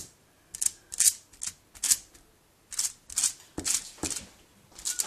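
A metal fork pricking puff pastry pockets on a paper-lined baking tray: a series of sharp, irregular clicks and taps, some in quick pairs, as the tines go in.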